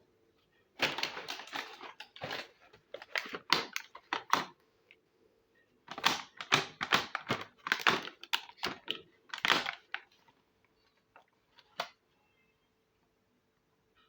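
Small plastic miniature toy kitchen pieces being handled, with quick clicks and clacks in two busy runs and a single click near the end.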